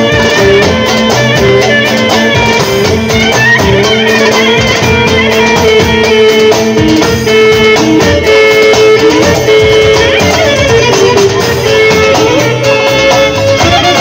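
Loud Romani folk dance music: a sustained, ornamented melody line over a steady drumbeat.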